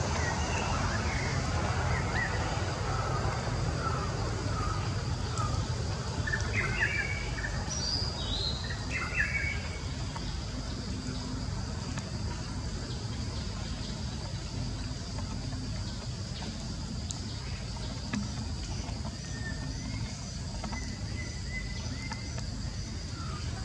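Outdoor ambience: a steady low rumble with scattered bird chirps and short falling calls, most of them in the first ten seconds, over a steady high-pitched tone.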